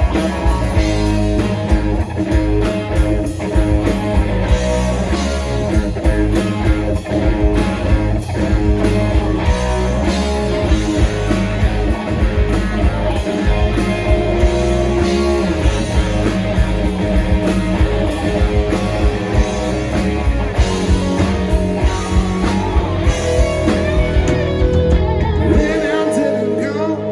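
Live rock band playing an instrumental break, with guitar to the fore over drums and bass. Near the end the drums and bass drop out.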